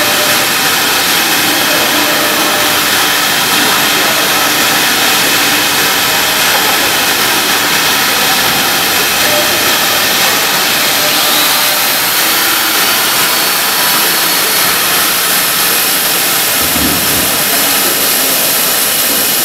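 CNC router with a linear automatic tool changer running a cutting job: a steady, loud rush of spindle and machine noise that holds unbroken.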